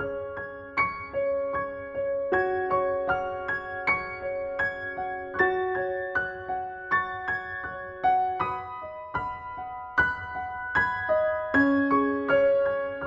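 Background instrumental music: a gentle keyboard melody of separate notes, each ringing on after it is struck.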